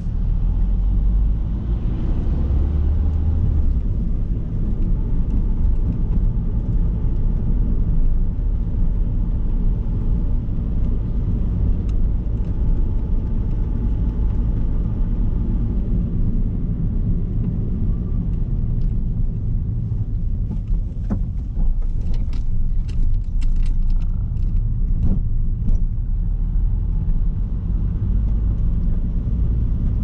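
Car driving on the road, heard from inside the cabin: a steady low rumble of engine and tyres. Several sharp clicks are heard about two-thirds of the way through.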